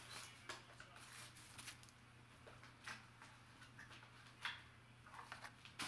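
Faint rustling and small clicks of a cardboard trading-card box being opened and handled by hand, over a low steady hum.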